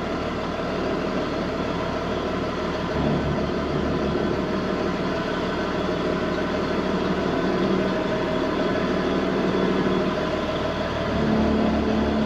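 Large farm machine's engine running steadily, its low drone shifting in pitch and strength about three seconds in and again near the end.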